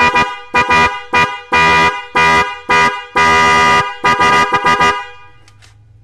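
A pair of Denso 12 V snail-type electric car horns sounding together in a series of about ten loud blasts, some short and some longer, stopping about five seconds in.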